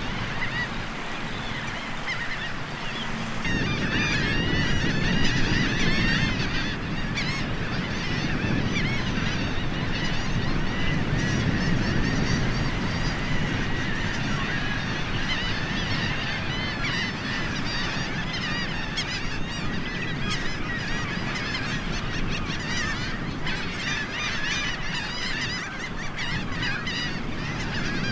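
A large flock of ruddy turnstones and red knots calling all at once: a dense, unbroken chatter of short high calls that grows louder about three and a half seconds in, with a steady low rush beneath it.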